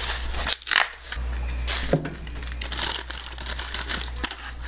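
Paper napkin and basket liner crinkling and rustling as food is handled, with eating sounds: short clicks and a bite into grilled corn. A steady low hum runs underneath.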